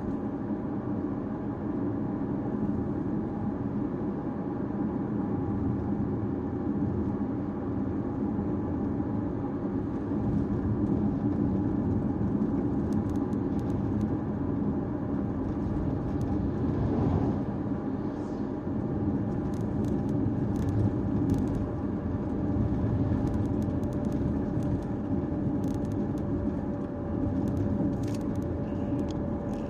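Caoa Chery Tiggo 5x driving on town roads: steady engine and tyre noise, with scattered faint ticks in the second half.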